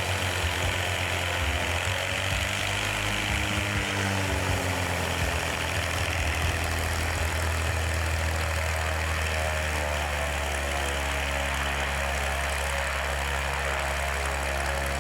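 Light aircraft's piston engine and propeller running steadily at low power, with a slight waver in pitch a few seconds in, as the ski plane moves on the frozen lake.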